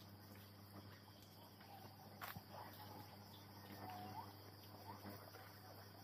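Faint, steady chorus of rainforest insects such as crickets, with a few brief chirps and a single click about two seconds in.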